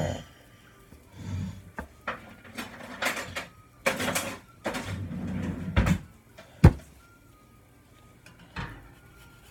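Kitchen handling noises: a run of short rustles and knocks, then one sharp click about two-thirds of the way through and a softer knock near the end. Faint background music with a stepping tune plays underneath.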